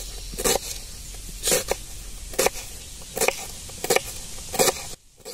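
Kitchen knife slicing a red onion on a wooden chopping board: a sharp knock of the blade on the board with each cut, about eight strokes, unevenly spaced.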